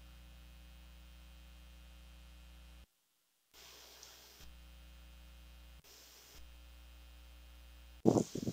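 Faint steady electrical hum that cuts out abruptly twice, with a couple of faint rustles. Near the end comes a short cluster of loud thumps.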